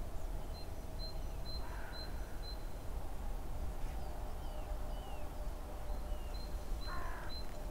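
Crows cawing, faintly about two seconds in and again near the end, among rows of short high chirps and small falling whistles from smaller birds, over a steady low rumble.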